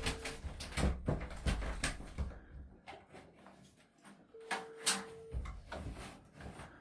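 Knocks and clatter of cupboards and drawers being opened and shut in a search. Two short steady beeps sound, one at the start and one about two-thirds of the way through.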